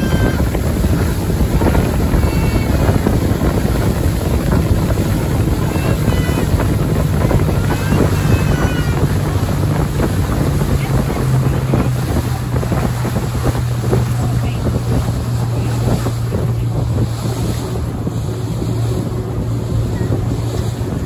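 A rigid inflatable boat's motor running steadily, with wind buffeting the microphone and water rushing past the hull. The engine note drops a little about halfway through.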